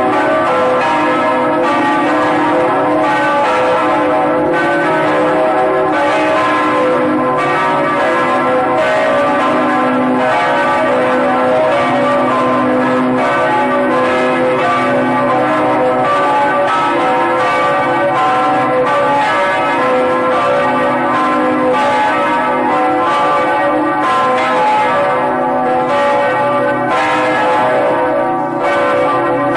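Several bells ringing together, struck over and over in a steady peal, their tones overlapping and ringing on between strikes.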